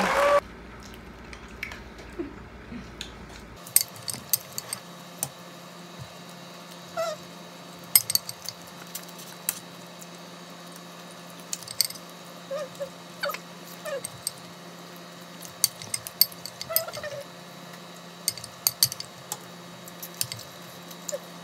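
Mukbang eating sounds: scattered clicks of a spoon against a rice bowl and of shrimp being handled and peeled, with wet finger-sucking and chewing, over a steady low hum.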